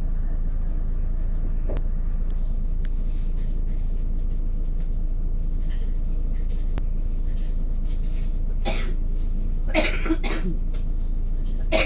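Double-decker bus engine idling while stationary, a steady low rumble heard from inside the upper deck. A passenger coughs several times near the end.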